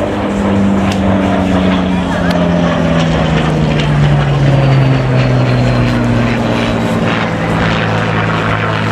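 Rolls-Royce Merlin piston engine of a Supermarine Spitfire Mk Vb flying a display pass, a steady propeller drone that falls slowly in pitch as it goes by.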